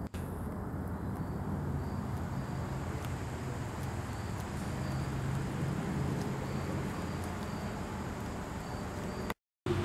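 Steady outdoor background with a low hum and faint short high chirps recurring about once a second; the sound cuts out completely for a moment near the end.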